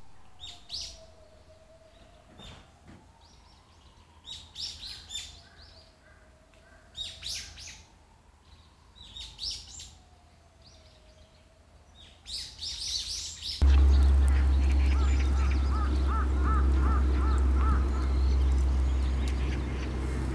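Small birds chirping in short bursts every couple of seconds, over a faint tone that slowly rises and falls. About two-thirds of the way in, a loud low rumble cuts in suddenly and carries on, with small repeated calls still faintly above it.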